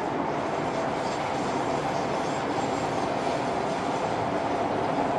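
Singapore MRT train on the North-South/East-West Line running along an elevated viaduct: a steady rumble of wheels on the rails, getting slightly louder.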